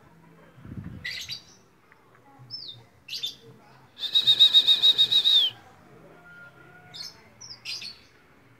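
Caged strawberry finches (red avadavats) giving short high chirps, with a loud rapid trill lasting about a second and a half near the middle that drops in pitch as it ends. A dull thump comes just before the first chirps, about a second in.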